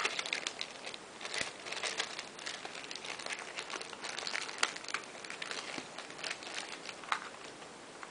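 Plastic packaging of a Happy Meal toy crinkling and crackling in irregular bursts as it is handled and opened to get the toy out.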